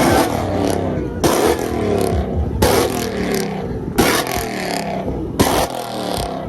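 A car engine revved over and over, about once every second and a half. Each rev opens with a sharp bang from the exhaust, and the engine pitch falls away after it: exhaust pops or backfires from a tuned street car.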